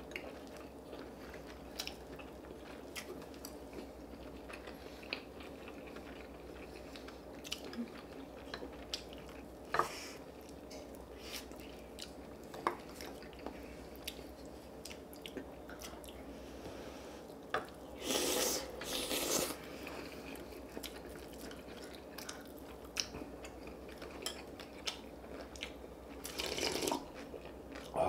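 Close-up eating sounds: chewing and biting, with scattered light clicks and taps of chopsticks and spoons on dishes, and two louder noisy stretches of a second or so, one past the middle and one near the end.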